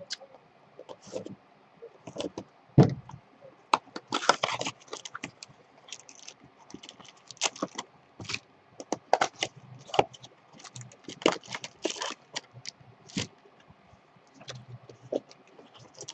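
Trading-card boxes and packs being handled on a table: irregular taps, scrapes and crinkles of cardboard and wrappers, with the sharpest knock about three seconds in.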